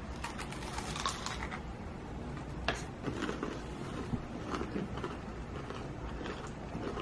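Crunching of a fried-chicken-style ice cream drumstick's crunchy breaded coating as it is bitten and chewed. There is a crackly bite at the start and a sharp crack a little under three seconds in, then smaller crunches while chewing.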